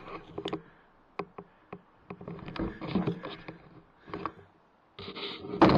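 Handling noise from a rifle-mounted night-vision scope being moved: scattered sharp clicks and short rustling, buzzy bursts, with a louder rustle at the very end.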